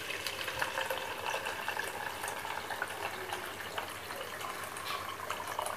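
Water pouring steadily from a new aquarium pump's outlet hose into a plastic measuring jug, filling it during a timed flow test of the pump.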